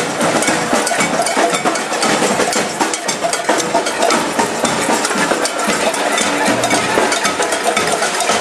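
Dense crowd noise of a street demonstration march, with many sharp clacks of hand percussion.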